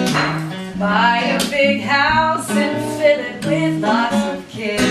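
Acoustic guitar strummed with a voice singing a melody over it.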